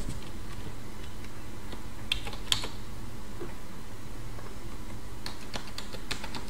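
Computer keyboard keys tapped in two short runs, about two seconds in and again near the end, as a username and then a password are typed. A steady low background hum runs underneath.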